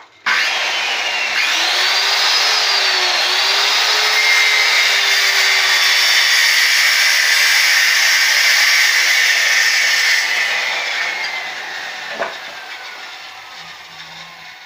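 Handheld electric circular saw started and cutting into a log, its motor whine dipping and recovering as the blade loads. About ten seconds in it is switched off and the blade winds down in a falling whine, with a single knock partway through.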